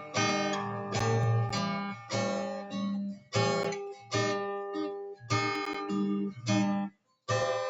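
Acoustic guitar strumming chords in a steady rhythm, about one strum every half to three-quarters of a second, as an instrumental break between sung lines. It stops briefly about seven seconds in before the strumming resumes.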